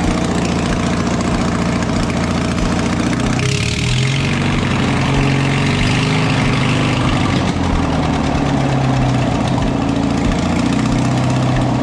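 A small engine running steadily at idle. About three and a half seconds in, its pitch shifts, and a few seconds of hissy, scraping noise join it.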